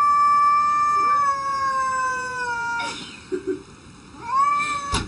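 A cat yowling: one long drawn-out yowl that sinks slowly in pitch and stops about three seconds in, then a shorter rising yowl near the end. A sharp click comes just before the end.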